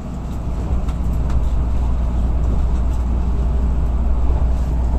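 Tokaido Shinkansen running noise heard inside the passenger cabin: a steady deep rumble with a hiss over it, swelling up over the first second.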